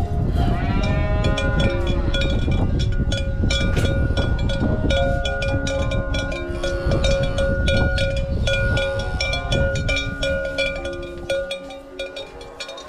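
Cattle with cowbells clanking and ringing throughout; a cow moos once, a call that rises and falls, in the first two seconds.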